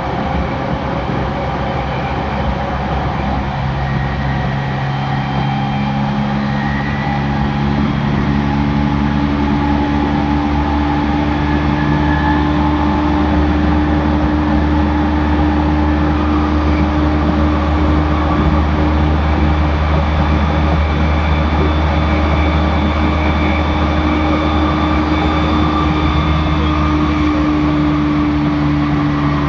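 JR East E231-series suburban train standing at the platform, its under-floor equipment giving a low, steady hum with several tones that set in a few seconds in and grow a little louder about eight seconds in.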